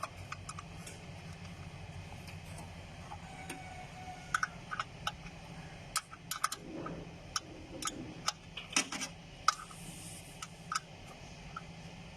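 Irregular light clicks and clinks of the Maruti 800's air cleaner bottom cover and its clamp being fitted by hand and seated over the carburettor, busiest in the second half, with a steady low hum underneath.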